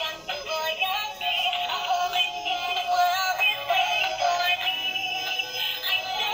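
Light-up dog toy playing a tinny electronic tune with synthesized singing through its small built-in speaker, thin and without bass.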